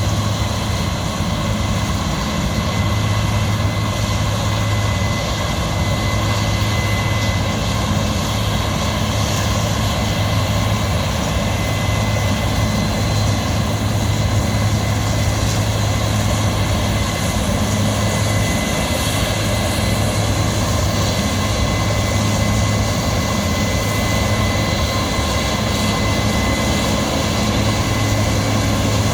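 Heavy diesel harvest machinery running steadily: a continuous low engine drone with a thin, steady high tone over it.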